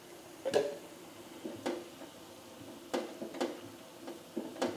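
A metal kitchen utensil clinking and knocking against cookware, about six sharp strikes at uneven intervals, each with a short ring.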